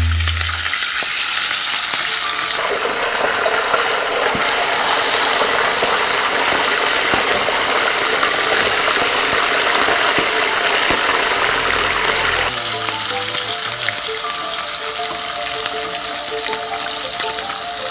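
Whole bream shallow-frying in hot oil in a pan: a steady, loud sizzle. Background music with held notes plays over it at the start and again from about two-thirds of the way through.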